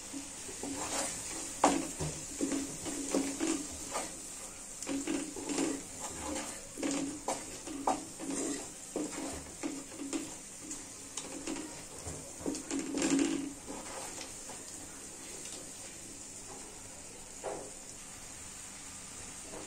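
Wooden spatula stirring and scraping a thick tomato curry in a metal wok, with a run of soft knocks and scrapes against the pan. The stirring stops about 14 seconds in, leaving a steady faint hiss and one last knock near the end.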